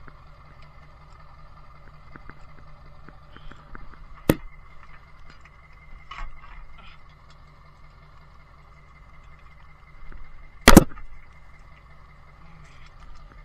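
Tow truck running steadily with a constant whine over its hum, broken by two sharp metallic bangs: a smaller one about a third of the way in and a louder one near the end.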